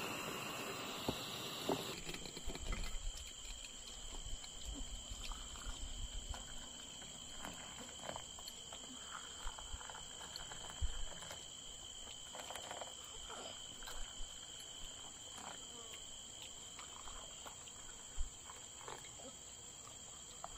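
A butane camping stove hisses under a glass kettle of boiling tea and is shut off about two seconds in. Tea is then poured from the kettle into glass cups, in soft trickles and small clinks, while crickets chirp steadily.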